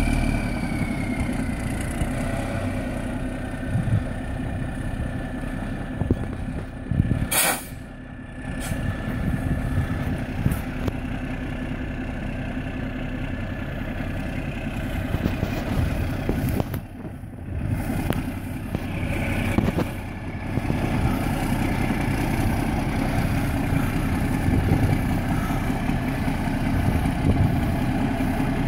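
1988 Freightliner FLD 120 truck tractor's diesel engine idling steadily, with one short, sharp hiss of air about seven seconds in.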